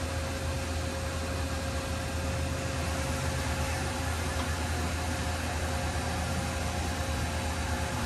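Steady hum and hiss of machinery running in a machine shop, with a constant mid-pitched tone over a strong low drone.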